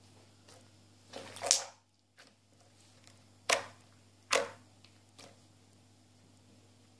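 Clear slime being squished by hand, giving three short wet squelching pops: the first about a second and a half in, then two close together near the middle. A low steady hum sits underneath.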